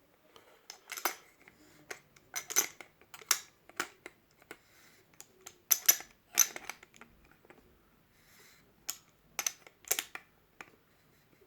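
Irregular sharp metallic clicks and clinks as a wrench works a nut down onto a single-lever mixer tap's cartridge, about a dozen of them, the loudest around the middle.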